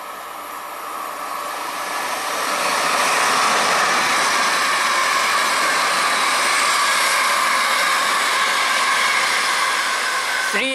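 ScotRail Class 380 electric multiple unit approaching and running past on the track, its rolling and motor noise building over the first few seconds, then holding loud and steady with a constant whine.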